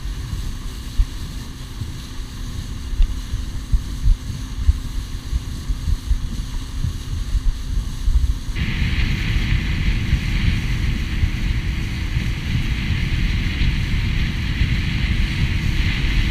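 Outboard motor of a small fishing boat running at speed, with a steady engine hum under heavy wind buffeting on the microphone and water rushing past. A little past halfway the sound changes abruptly to a brighter hiss over a slightly higher hum.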